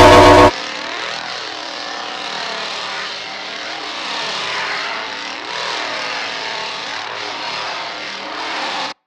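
Music cuts off about half a second in. A steady engine-like rush follows, with slow sweeping whooshes, then cuts off abruptly near the end.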